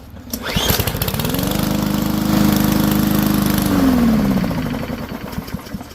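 Yard Machines push mower's Powermore single-cylinder engine is pull-started. It fires about half a second in, revs up and runs steadily for a couple of seconds, then slows and dies out near the end. The engine not staying running is fuel starvation, which the owner puts down to other passages in the carburetor still being clogged.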